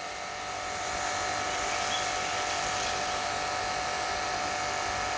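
StarQ W3 portable pressure washer running steadily, its electric motor and pump humming while the gun sprays a thin jet of water. Output pressure is still low: it has risen only a little after shampoo was flushed through the inlet hose to clear debris.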